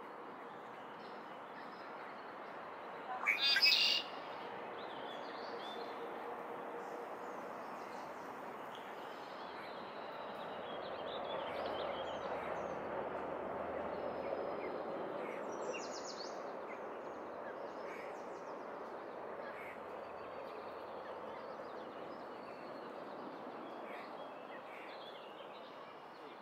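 Birds calling, with short high chirps scattered through a steady background noise and one loud, brief call about three seconds in.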